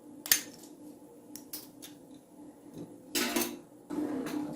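A metal spoon knocking and scraping against a cooking pot while stirring simmering milk: a sharp clink early, a few lighter taps, then two longer scraping strokes.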